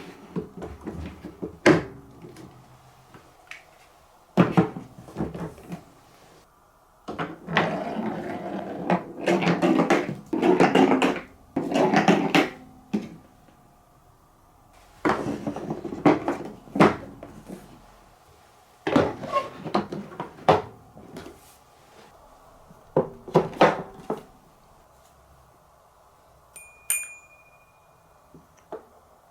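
Marbles rolling and clattering along plastic TrixTrack marble-run track: bursts of rolling rumble broken by sharp clicks and knocks as they drop and strike the pieces. A brief high ringing tone sounds near the end.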